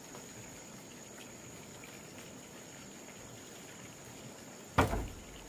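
Steady high-pitched insect drone, with one sudden loud thump near the end.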